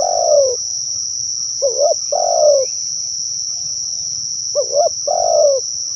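Spotted dove cooing: a quick two-part note followed by a longer, falling coo, repeated about every two and a half seconds. A steady high-pitched insect drone runs underneath.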